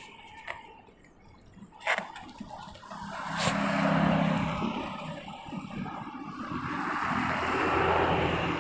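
Bicycle rolling downhill with wind rushing over a handlebar-mounted camera's microphone, swelling twice. Sharp knocks come about two and three and a half seconds in as the camera is jolted.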